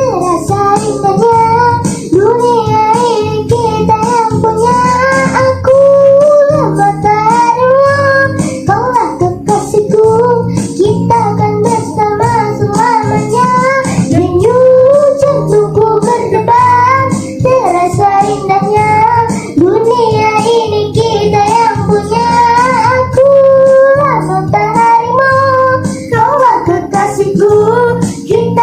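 A young girl singing a melody over a backing track with plucked-string accompaniment.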